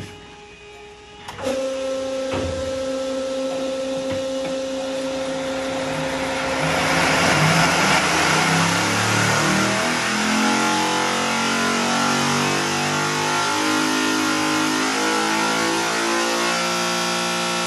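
Sonny's 650-cubic-inch billet Hemi V8 truck-pulling engine at wide-open throttle on an engine dyno, heard from the control room. It comes in about a second and a half in and grows louder around seven seconds in. Its pitch then steps up and down as the dyno mimics the tires loading and breaking loose, climbing near the end toward 9,000 rpm, in a valvetrain torture test.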